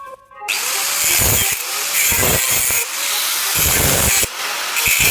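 A power tool cutting into the steel shell of a refrigerator compressor, a steady hiss with four heavier surges about a second apart. A brief chime-like tone comes before the cutting starts.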